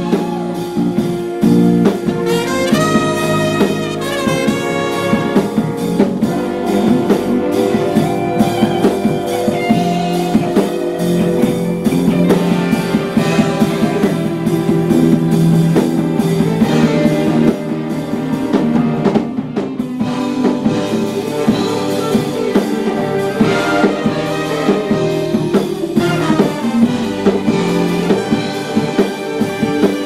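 A large jazz ensemble playing, with trombones and trumpets carrying sustained chords and melodic runs over a drum kit.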